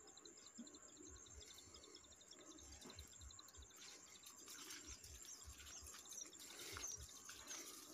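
Faint bird chirps, first in a quick row and later as a few short rising calls, over a steady faint high whine. From about four seconds in there is soft rustling and footfalls through dry rice stalks. No animal grunt stands out.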